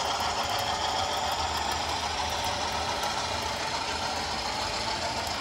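Model freight train rolling along the layout's track, a steady rolling noise of the wagons' small wheels on the rails, with faint clicking.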